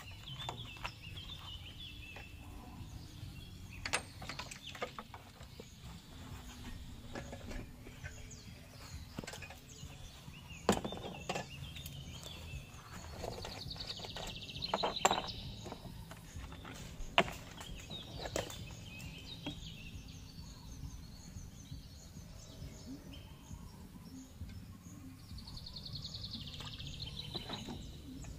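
Outdoor ambience with a steady low background noise, birds twittering twice, about halfway through and again near the end, and scattered light knocks and clicks.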